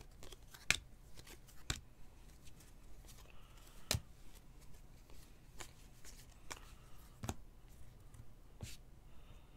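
Football trading cards being thumbed off a stack in the hand, giving a series of short, sharp card-stock clicks and snaps a second or so apart, the loudest about four seconds in.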